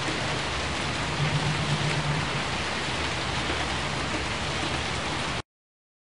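Steady rain sound, an even hiss, that cuts off suddenly about five seconds in.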